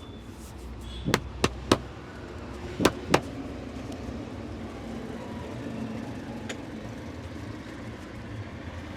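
Five sharp hand slaps of a head massage, three in quick succession about a second in and two more shortly after, over steady street traffic noise.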